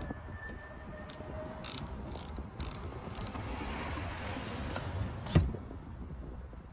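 Fiamma height-adjustable bike rack's lift mechanism being worked, giving about five short high scraping clicks in the first half, then a single sharp knock about five seconds in.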